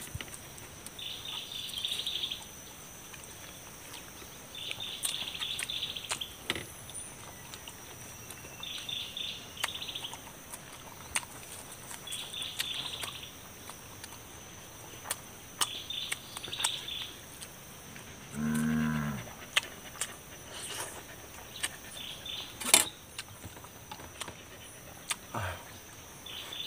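Mouth and hand sounds of a person eating, with scattered sharp clicks, one much louder about two-thirds of the way in. Behind them, a chirping call of several quick high notes repeats every two to three seconds, and a brief low animal call sounds just past the middle.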